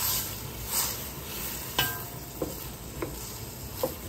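A wooden spoon stirring sautéed onion, celery and carrot in a steel braising pan, the vegetables sizzling steadily as the white wine cooks down. Several short scrapes of the spoon, and a sharp knock with a short ring about halfway through.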